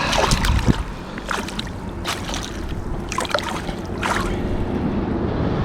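Rushing river water and wind on the microphone, with scattered short splashes and knocks.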